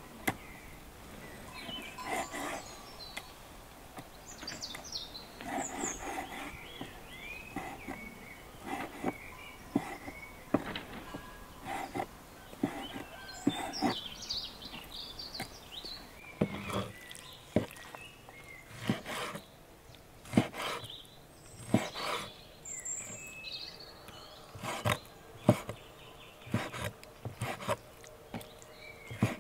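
Irregular sharp knocks and clicks of hands-on cooking work, a few every couple of seconds, with birds chirping now and then in the background.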